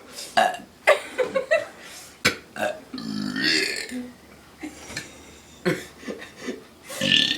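A person burping deliberately and repeatedly: a long, low burp about three seconds in, and another loud one starting near the end.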